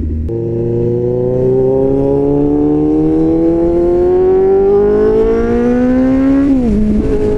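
Inline-four motorcycle engine through a loud aftermarket SC-Project-style slip-on exhaust, accelerating hard in one gear. Its note climbs steadily for about six seconds, then drops sharply and settles to a steady pitch.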